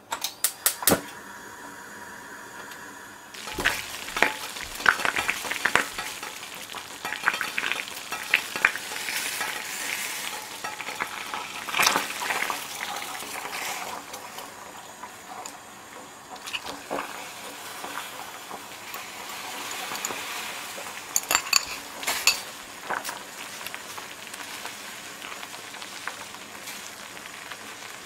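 Dashi-and-soy broth bubbling hard in a stainless steel oyakodon pan with fried chicken and egg cooking in it, a steady crackle that starts a few seconds in. Sharp clinks and knocks of utensils on the metal pan come through it, with a quick run of ringing clinks a little after the middle.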